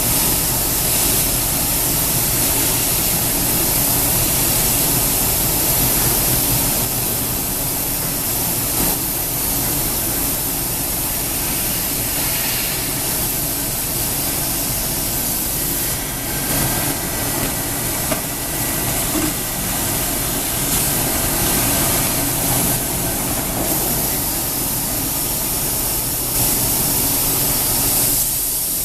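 Komo VR 1005TT dual-table CNC router running: a steady, loud hiss over a low hum, with a few brief level dips and small knocks along the way.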